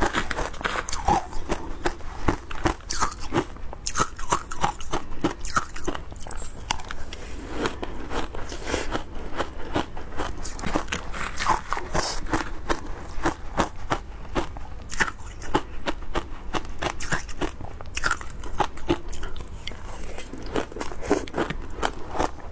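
Shaved ice topped with matcha powder and milk powder being bitten and chewed close to the microphone, a dense run of crunches several times a second.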